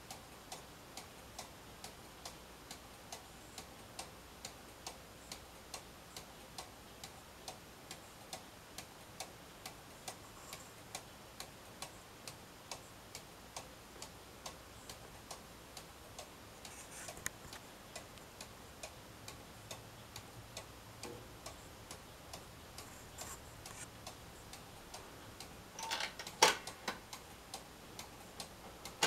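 Cuckoo clock's mechanical movement ticking steadily and evenly. Near the end, a short burst of louder clicks and scrapes as a finger moves the clock's hands.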